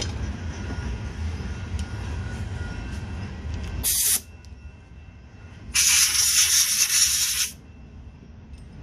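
Two hissing sprays aimed at the carburetor of a Honda mower engine to clean it, a short one about four seconds in and a longer one lasting nearly two seconds. A steady low rumble runs underneath.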